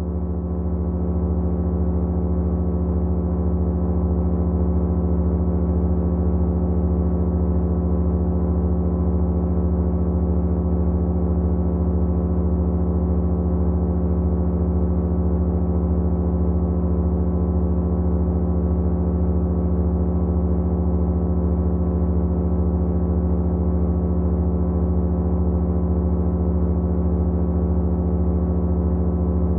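Several motors running together, making a steady, unchanging hum built of many held tones over a strong low drone.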